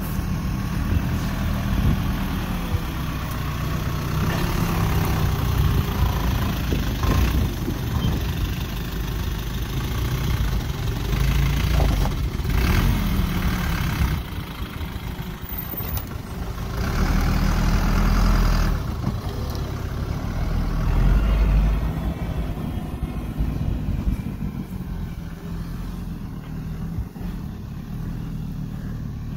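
Engine of a small truck loaded with firewood logs, running under load over a rough dirt track and rising and easing with the throttle several times. It grows fainter near the end as the truck pulls away.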